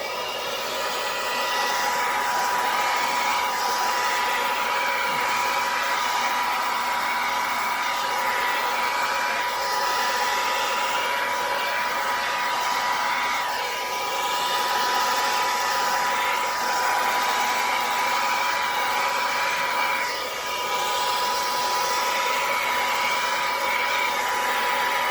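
Handheld hair dryer blowing continuously with a steady whine over its airflow noise, dipping briefly about halfway through and again about four-fifths of the way in. It is blowing across wet pour paint to spread it into blooms.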